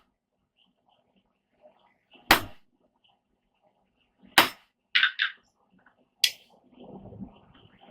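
Hand hammer striking a rounded dapping punch into hot steel to sink a depression for a button-head rivet header: three single heavy blows about two seconds apart, with two lighter metallic clinks about five seconds in.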